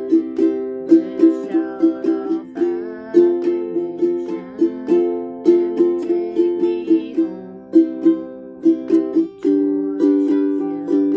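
Ukulele strummed in a steady rhythm, playing the chord accompaniment to a hymn.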